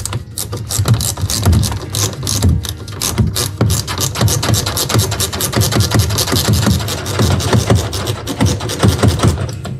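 Rapid, continuous metallic clicking of a ratcheting ring spanner working a screw loose.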